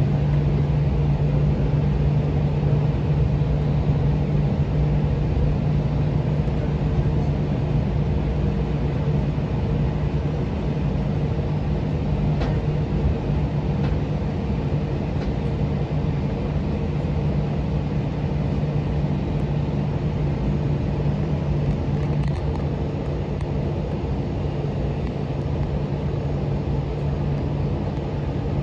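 Cabin sound of an Airbus A321's turbofan engines running steadily at low power, heard from a window seat beside the engine: a constant low hum over a steady rushing noise.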